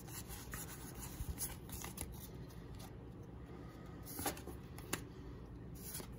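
Pokémon trading cards being slid and flicked one by one from the back of the pack's stack to the front: small irregular papery rustles and clicks, with a sharper flick about four seconds in.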